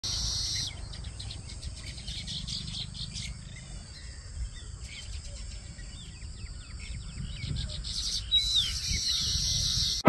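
Weaver birds chirping and chattering in a quick series of short calls, with a wheezy high buzz at the start and again near the end. A low steady rumble runs underneath.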